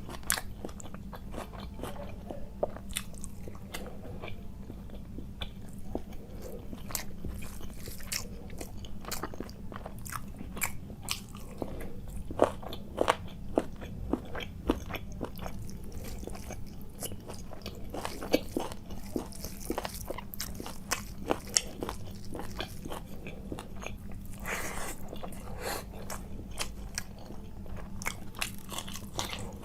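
Close-miked chewing and biting of food, with many sharp, irregular crunches and mouth clicks over a steady low hum.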